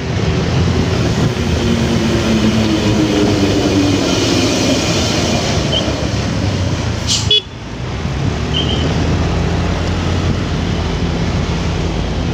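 Motorcycle riding through city traffic: engine running with wind noise on the rider's camera microphone and surrounding road traffic. An engine note sinks in pitch over a few seconds, and a sharp click with a brief dip in level comes about seven seconds in.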